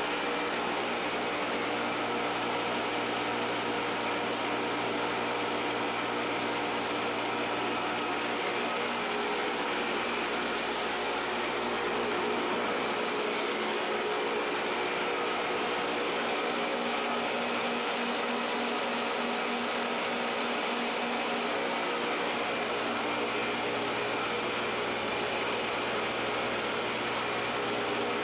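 Atta chakki flour mill driven by a 20 hp electric motor through V-belts, running steadily: a continuous whirring hum with several steady tones in it.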